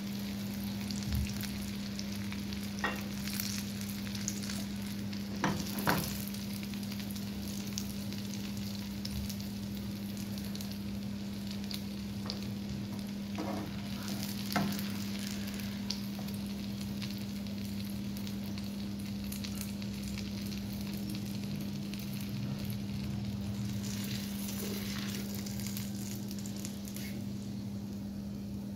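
Oil sizzling steadily in a shallow nonstick frying pan as chicken shami kababs fry, with a few light clicks of a metal fork against the pan as the kababs are lifted out. A steady low hum runs underneath.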